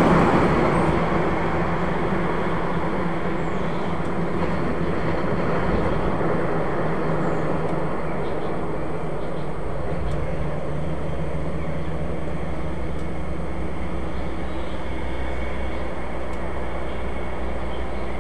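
Road traffic: a vehicle's engine sound fading over the first second or two, then a steady run of road noise. A low engine rumble grows from about halfway as a truck comes up the road.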